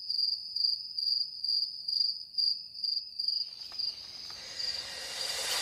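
Crickets chirping: a steady high trill that pulses about twice a second. A rising whoosh swells in over the last two seconds.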